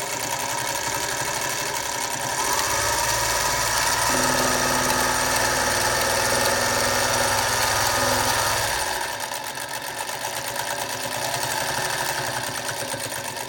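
Singer Featherweight 221 sewing machine running under its foot pedal: a steady motor whir with fast needle clatter. Its speed shifts a few times before it winds down at the very end.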